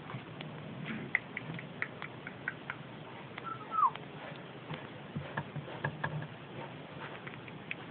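Pigeons in a loft: faint low cooing with scattered light ticks and short high chirps. One short squeak falls in pitch about halfway through and is the loudest sound.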